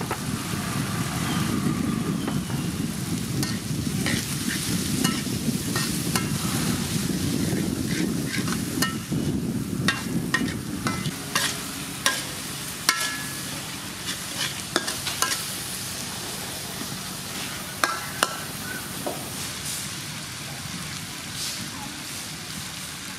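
Eel pieces and shredded lemongrass sizzling as they are stir-fried in a metal wok, with a metal spatula scraping and clacking against the pan, the clacks coming thickest through the middle.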